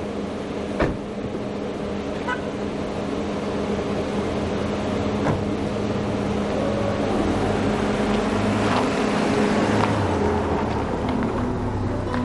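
A car door shuts with a sharp thud about a second in. A car engine runs steadily and then pulls away, its low rumble swelling in the second half.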